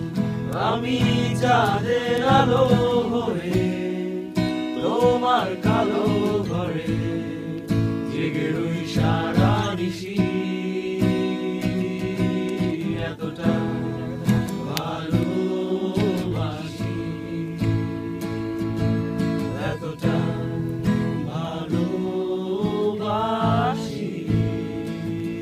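Acoustic guitar strumming chords while voices sing along over it, the sung lines sliding and wavering in pitch.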